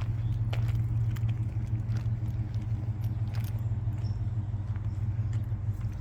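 A steady low mechanical hum, like an engine or machine running, with a few faint clicks and jingles over it.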